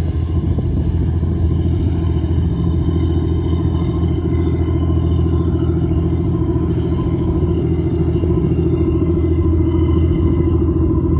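Boat motor running steadily: a loud low hum with a few steady higher tones over it.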